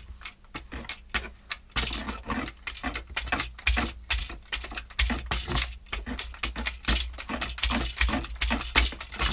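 A paint edger's roller being rolled back and forth in a plastic paint tray to load it with paint: a fast, irregular clicking and rattling of plastic, soft at first and louder from about two seconds in.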